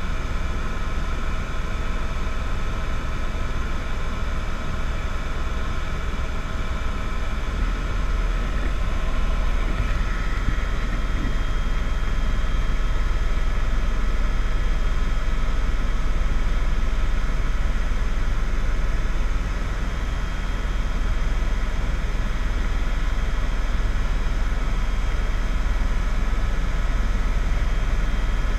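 Steady vehicle-type drone: a deep rumble with a few steady tones over a hiss, a little louder from about a third of the way in.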